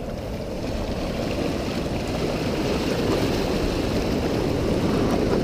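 Ocean surf washing on the shore: a steady rush of water that grows gradually louder.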